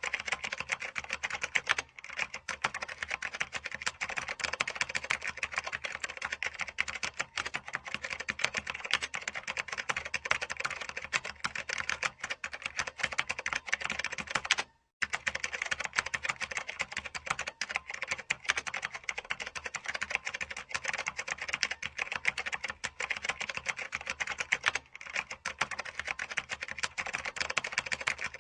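Computer keyboard being typed on fast and without letup, a dense clatter of keystrokes, broken by a brief gap about halfway through.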